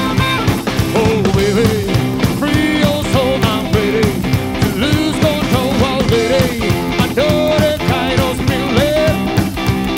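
Live rockabilly rhythm-and-blues band playing an instrumental passage on blues harp, guitar, double bass and drums, with a steady beat and a lead line that slides and bends in pitch.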